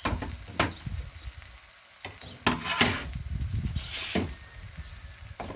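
Spatula stirring and scraping nduma (arrowroot) frying in a pan, about six irregular strokes over the sizzle of the frying.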